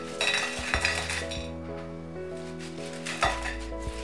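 Crisp, double-fried potato pakoras tumbling from a wire spider skimmer onto a ceramic plate: a dry, crunchy clatter in quick bursts, heaviest in the first second and a half and again a little after three seconds in, over soft background music.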